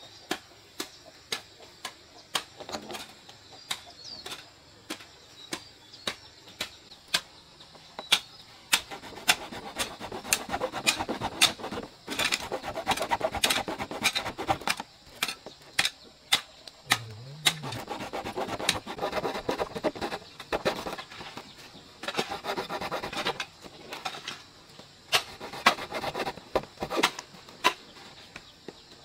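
Wood being worked by hand: sharp clicks and taps throughout, with stretches of rasping, scraping strokes from about nine seconds in.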